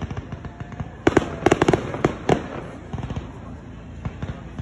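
Fireworks display: aerial shells bursting in a rapid, uneven series of sharp bangs, thickest from about one to two and a half seconds in.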